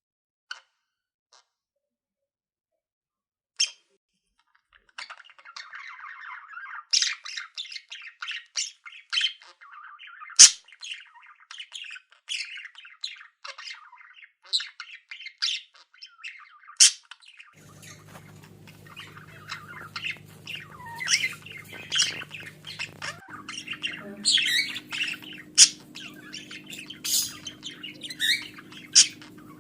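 Budgerigars chirping: a few single sharp chirps at first, then continuous chattering and warbling from about five seconds in. A low steady hum joins past the halfway point.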